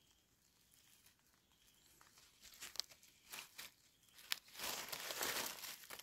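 Dry leaf litter and soil rustling and crackling as a hand digs egg-stage Amanita mushroom buttons out of the forest floor. There are a few light crackles and one sharp snap, then a longer burst of rustling and scraping near the end as the buttons come free.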